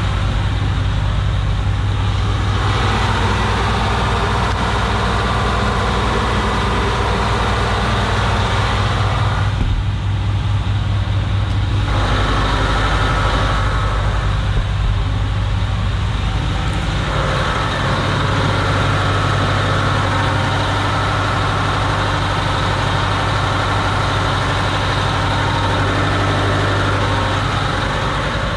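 Steady low drone of a Hatteras motor yacht's marine diesel running, heard from inside the hull. A rushing noise rides on top of it and drops away briefly about ten and fifteen seconds in.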